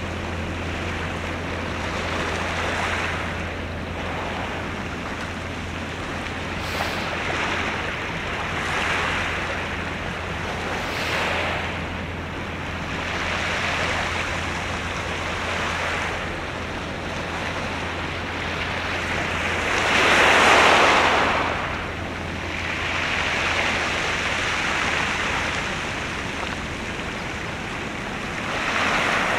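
Waves washing in and falling back in repeated swells every two to three seconds, the largest about two-thirds of the way through, over a steady low hum.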